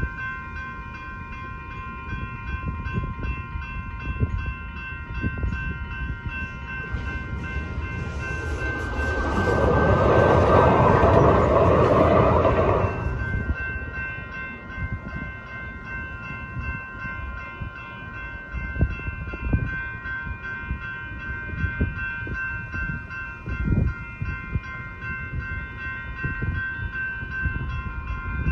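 Railroad crossing bells ringing steadily and repeatedly while a Siemens-Duewag U2A light rail train passes through the crossing, its rushing noise swelling up about eight seconds in and dying away after about five seconds.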